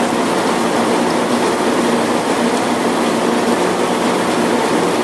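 Steady, loud mechanical noise of a fishing trawler's machinery running on the working deck, with no breaks or distinct knocks.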